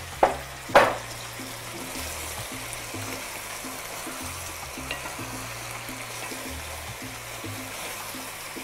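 Pasta and meat sauce sizzling in a frying pan with a splash of pasta cooking water, stirred and tossed with wooden spoons: a steady sizzle. Two sharp knocks come just after the start, and soft background music plays underneath.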